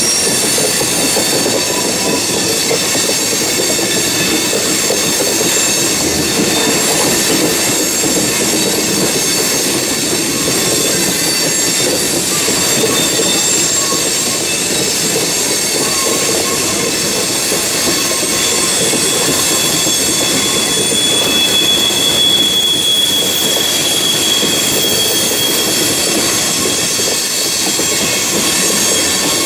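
A loaded coal train's hopper cars rolling steadily past: a continuous rumble of steel wheels on rail with steady high-pitched wheel squeal over it, the squeal strongest a little past two-thirds of the way through.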